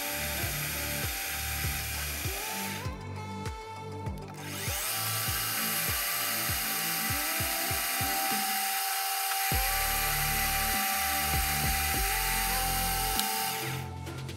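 Background music with a steady beat over a metal lathe turning down a threaded rod, the cutting noise dropping out briefly about three seconds in.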